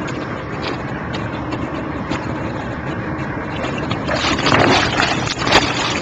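A steady rush of wind and water against the boat. About four seconds in, a shark thrashes at the surface right beside the hull, a burst of splashing with a sharp slap of water near the end.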